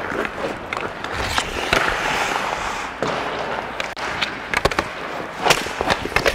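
Hockey skate blades carving and scraping on ice, with many sharp clacks of sticks on the puck and ice, coming thickest about two-thirds of the way in.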